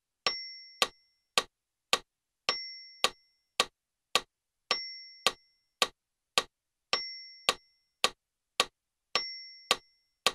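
Roland FP-90X digital piano's built-in metronome clicking steadily, a little under two clicks a second, with every fourth click accented by a short higher beep marking the first beat of each bar.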